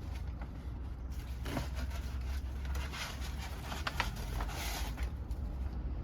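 Fire being lit in a wood-burning stove: irregular crackles and a brief hiss as the kindling starts to catch, over a steady low rumble.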